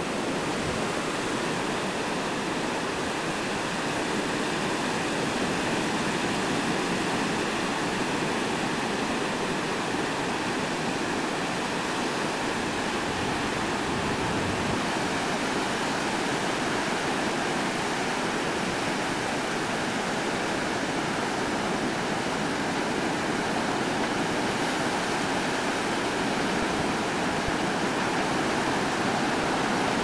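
A steady, even rush of ocean surf breaking on a beach.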